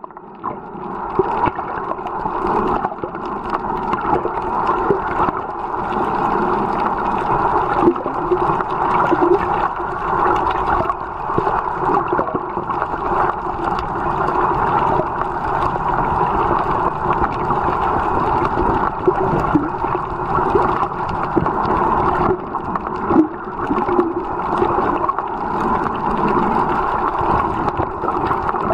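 Underwater noise picked up by a submerged camera while snorkelling: a steady, muffled rushing of water that wavers in level.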